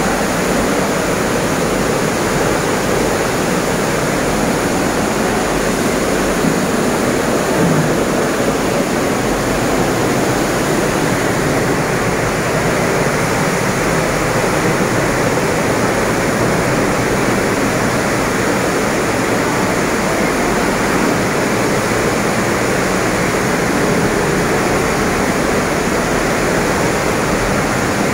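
River floodwater rushing through a flooded cave temple: a loud, steady wash of flowing water. The river is in spate after a cloudburst upstream.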